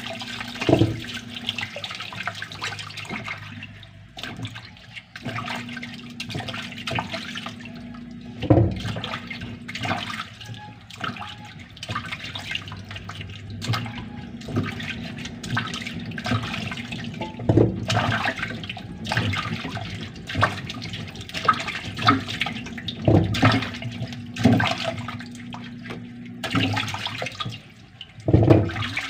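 Kitchen tap running into a steel bowl of water in a stainless-steel sink while peeled cassava roots are rubbed and swished by hand, with several louder knocks and splashes spread through.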